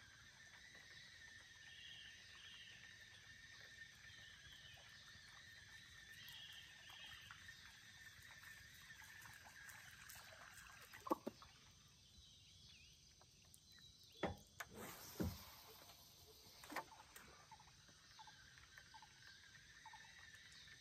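Faint, steady chorus of frogs and insects in a flooded swamp. A few sharp knocks break in around the middle, the loudest pair about two-thirds of the way through.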